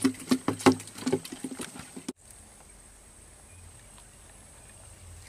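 Close rustling and sharp clicking handling noises for about two seconds as a hook is baited among tall grass. Then an abrupt cut leaves only a faint, steady outdoor background by the water.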